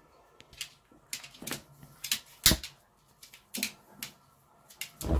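Irregular sharp clicks and knocks, about a dozen in five seconds, with the loudest knocks about two and a half seconds in and near the end.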